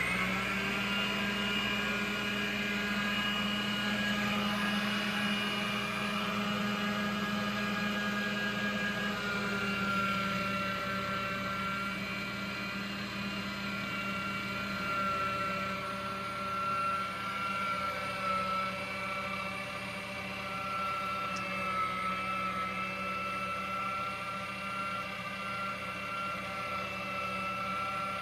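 Budget electric meat grinder's motor running steadily, grinding deer meat, with a low hum and a high whine. The whine's pitch drops slightly about ten seconds in.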